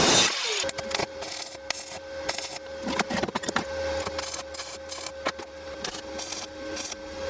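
A power tool's loud noise stops about half a second in. Then comes irregular rubbing and scraping on wood, like hand filing or rasping, over a faint steady hum.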